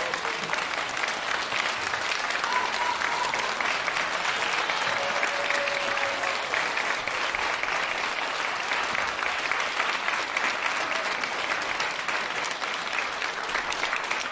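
Audience applauding steadily: dense, continuous clapping from a full hall.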